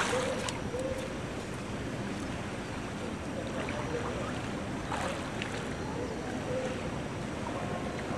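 Steady wash of water and wind on the microphone, with a few faint splashes from a swimmer in the pool.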